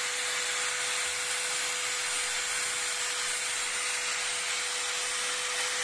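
Handheld electric angle grinder running steadily: a continuous motor whir with a thin steady hum.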